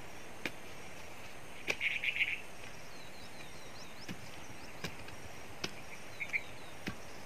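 Scattered sharp knocks of a hand tool striking at the base of a tree stump, about six in all, over a steady outdoor hiss. Birds call: a short burst of quick chirps about two seconds in is the loudest sound, with fainter chirps later.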